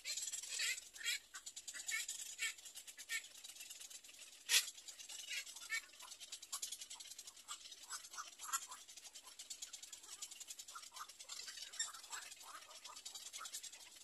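Birds giving short, rapid, irregular chirping calls, with one louder, sharper call about four and a half seconds in.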